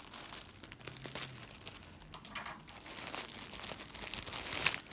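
Packaging crinkling and rustling in hands as a plush toy is unwrapped, with scattered small crackles and one sharper, louder crackle near the end.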